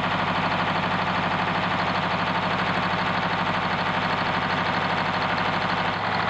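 Detroit Diesel two-stroke V engine of a water-well drilling rig running steadily with its valve covers off and the rocker gear exposed, while its valves are checked as the cause of the engine running poorly.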